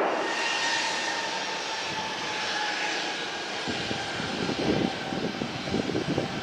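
Engines of a cargo plane rolling out after landing and winding down from reverse thrust: the loud rush fades right at the start, leaving a steady engine whine over a lower rumble. Uneven low rumbling swells come in from about four seconds in.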